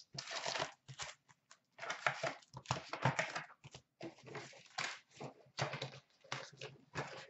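2013-14 Upper Deck SP Authentic hockey card packs crinkling and rustling as they are pulled out of an opened box and stacked, in irregular bursts with short pauses.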